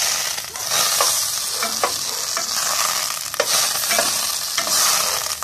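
Butter sizzling as it melts in a very hot pot, stirred with a spoon that now and then clicks against the pot. The sizzle swells and eases every second or so. The burner is set too high, enough to risk burning the butter.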